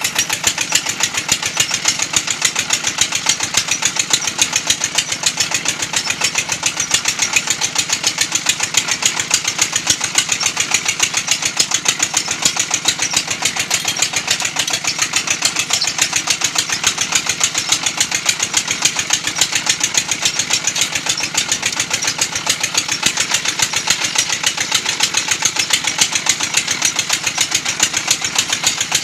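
Brick-making machine running steadily with a fast, even mechanical beat.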